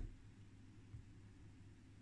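Near silence: a faint, steady low hum of room tone, with one very faint tick about a second in.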